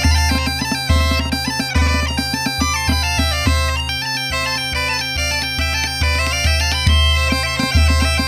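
Two Galician gaitas (bagpipes) playing a muiñeira: a fast, ornamented melody over a steady drone, with a drum and tambourine keeping a regular beat.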